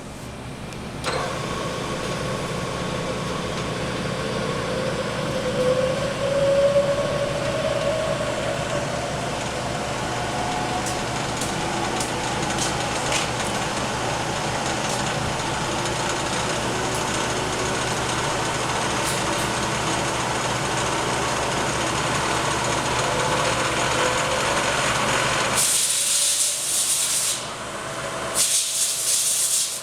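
Bridgeport vertical milling machine running under its 1-1/2 HP motor, starting up about a second in, with a whine that rises in pitch a few seconds later as the variable-speed spindle is brought up to speed, then holds steady. Two short bursts of hiss come near the end.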